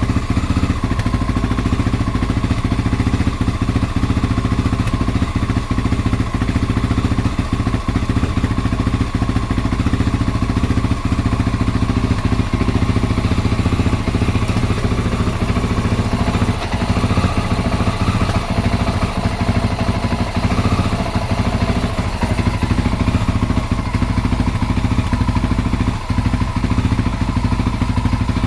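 Honda XR650L's single-cylinder four-stroke engine idling roughly, with an uneven, spitting stutter that keeps breaking the beat.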